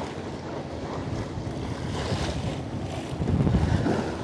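Wind buffeting the microphone over sea water washing along a fishing boat's hull, swelling louder near the end.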